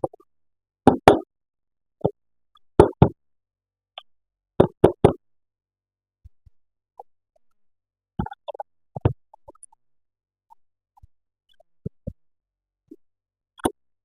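Toys and packaging being handled, making sharp clicks and knocks: three strong double knocks in the first five seconds, then scattered lighter ticks and taps.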